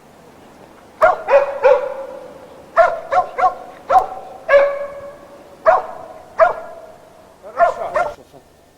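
Hunting dogs barking, about a dozen short barks in quick clusters of two or three.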